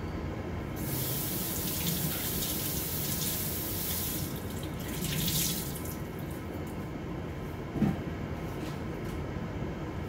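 Water running for about five seconds, then a single knock, over a steady low rumble.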